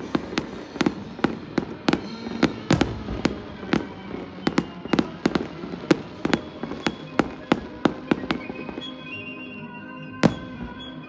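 Fireworks display: aerial shells bursting in rapid succession, about three bangs a second, thinning out after about eight seconds, with one last loud bang near the end. Music plays underneath and comes forward as the bangs stop.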